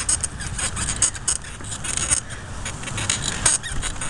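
A bicycle being ridden over rough, wet grass: the tyres swish through the grass while the bike rattles and clicks unevenly over the bumps, above a steady low rumble.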